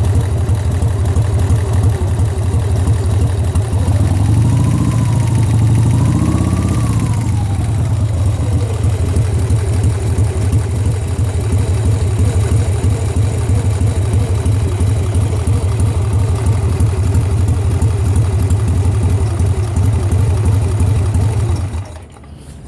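Harley-Davidson Sportster V-twin engine idling with a knock, which the owner suspects may be a bad lifter. It is revved twice, briefly, about four to seven seconds in, settles back to idle, and is switched off near the end.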